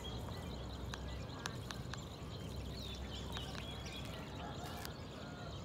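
Low, steady rumble of a distant Alsthom diesel-electric locomotive approaching, with small birds chirping and a few sharp ticks over it.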